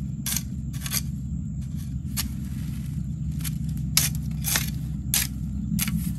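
A hand hoe chopping and scraping into dry soil, about eight strokes at an uneven pace, loosening the ground and cutting out weeds around a young tree's base. A steady low rumble runs underneath.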